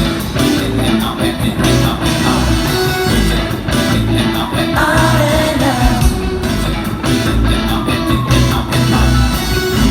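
A live rock band playing a song's opening bars, with drums, bass and electric guitar, and some singing over the band.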